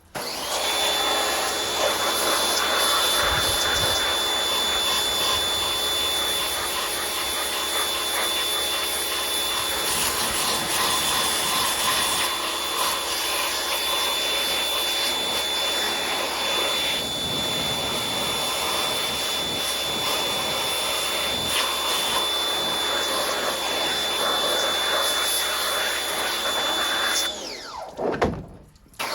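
Pressure washer running steadily, a constant high whine over the hiss of the water spray, used to wash grime and bar oil off a chainsaw; near the end the motor winds down with a falling pitch as it shuts off.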